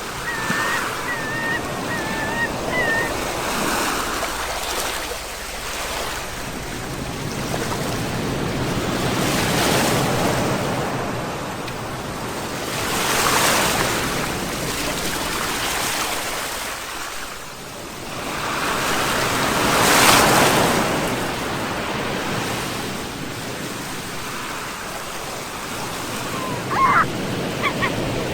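Sea waves breaking on the shore and washing back, the surf swelling and fading every few seconds, with the biggest surges about ten, thirteen and twenty seconds in.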